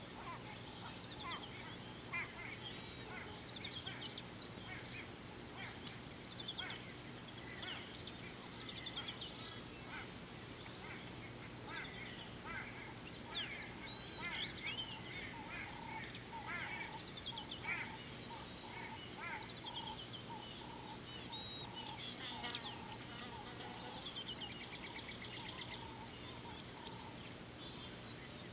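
Wild birds calling at a watering hole: many short chirps and calls, one after another, with some honking, goose-like calls among them.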